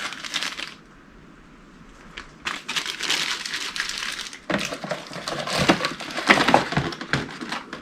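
Packaging being handled, crinkling and rustling in irregular bursts. It drops to a low hiss for a second or so after the start, then comes back louder.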